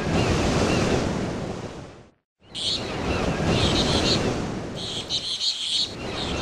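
Wind buffeting the microphone, with birds chirping in short repeated bursts over it. The sound drops out completely for a moment about two seconds in, then the wind and chirps carry on.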